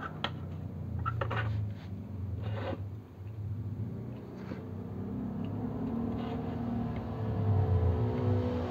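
A spring-loaded desoldering pump clicking and scraping a few times in the first half as it is cocked and fired to suck solder off circuit-board pins, over a low steady hum.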